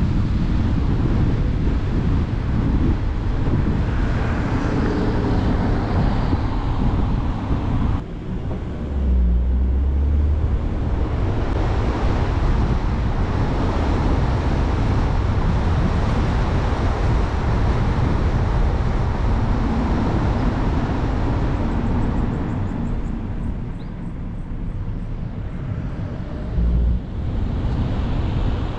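Wind rushing over the microphone together with tyre and road noise from a moving car, a steady heavy rumble with no voices. The sound drops and changes abruptly about eight seconds in, then carries on much the same.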